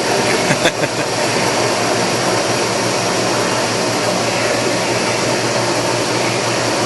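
Leblond Regal toolroom lathe running, a steady mechanical whir of its motor and gearing while the carriage crawls along the ways, with a couple of brief knocks about half a second in.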